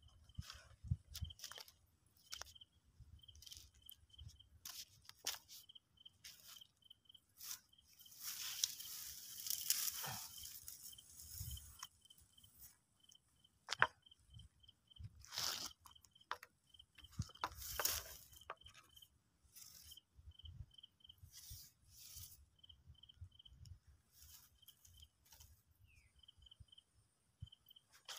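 Tall grass rustling and brushing as a bamboo fishing pole is moved through it, in irregular swishes with a denser stretch a third of the way in. An insect chirps faintly in short repeated pulses throughout.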